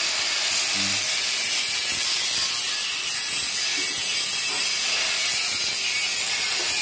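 Exhaust welding in progress: a steady, unbroken hiss with no pauses.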